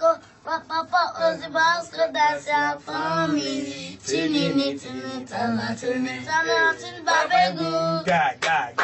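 A young boy singing unaccompanied into a microphone in short rising and falling phrases, louder near the end.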